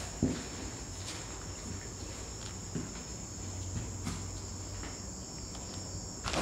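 Crickets chirring in a steady, continuous high-pitched night chorus, with a few faint knocks scattered through it.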